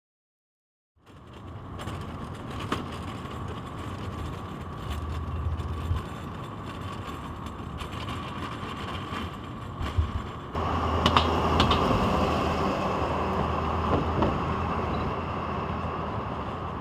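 Steady vehicle and street hum with scattered clicks and creaks. It grows louder about ten seconds in.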